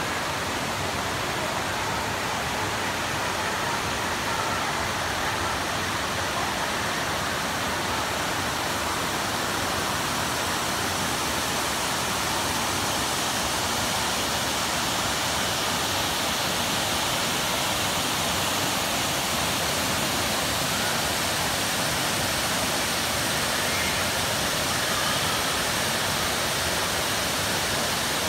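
Waterfall and its creek running: a steady rush of falling water that grows slightly louder toward the end.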